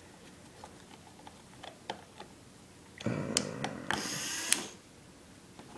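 Small plastic clicks as LEGO Power Functions cable connectors are handled and pressed onto a small electronics case. About three seconds in comes a louder mechanical whirring that lasts about a second and a half.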